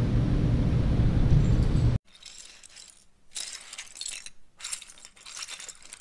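A steady low rumble that cuts off abruptly about two seconds in. Then hands stir through a pile of plastic Lego bricks: light, scattered clinking and rattling.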